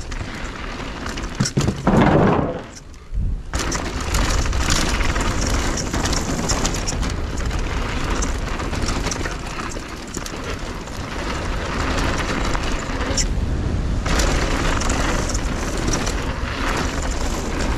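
Mountain bike riding fast down a dirt jump trail: wind rushing over the action camera's microphone and the tyres rolling over hardpacked dirt and gravel. There is a loud swell about two seconds in, followed by a short lull.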